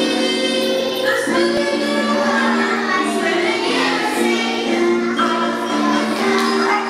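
A group of kindergarten children singing a song together, with women's voices leading.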